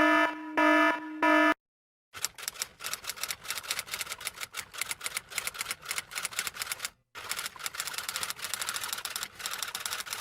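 A short pitched tone repeats a few times. After a brief pause comes rapid, continuous clatter of keys being typed, with one short break about seven seconds in.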